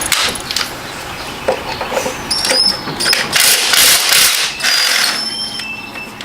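Plastic trim piece being worked loose by hand: scraping and rustling with short high squeaks of plastic rubbing on plastic, loudest for a second or so a little past the middle, and a few clicks.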